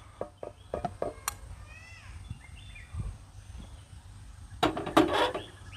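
A handful of light clicks and knocks from cookware being handled as the tempering begins. Then a bird chirps a few short notes in the background, and a person speaks briefly near the end.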